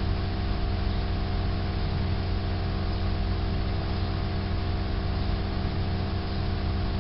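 Steady low machine hum with an unchanging droning pitch over a background hiss.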